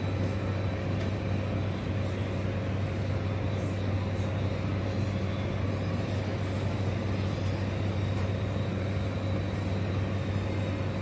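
Steady low mechanical hum that holds unchanged throughout, with faint light ticks now and then.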